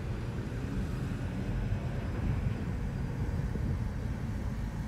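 Steady low rumble of vehicle and road noise.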